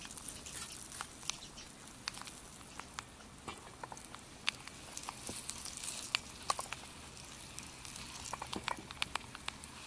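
Hot oil tempering in a small steel pan sizzling, with mustard seeds, cumin, curry leaves and dried red chillies in it; irregular small pops and crackles come throughout over a steady hiss.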